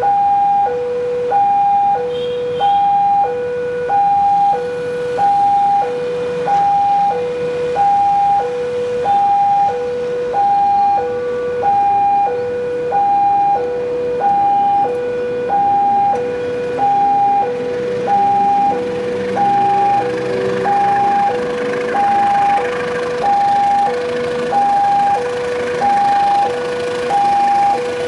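Railway level-crossing warning alarm sounding a steady two-tone high–low chime, about one cycle a second. A KAI diesel locomotive hauling a container freight train approaches under it, its engine growing louder in the second half.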